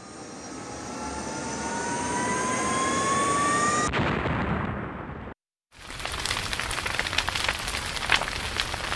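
Jet-aircraft whine rising steadily in pitch and growing louder, cut off about four seconds in by an explosion that dies away. After a brief silence, a fire crackles with sharp pops.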